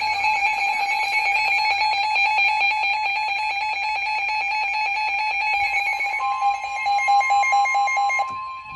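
Weather radio alert alarm sounding, a rapid electronic beeping. About six seconds in, the steady 1050 Hz NOAA Weather Radio warning alarm tone joins it, the signal that a warning broadcast is about to follow.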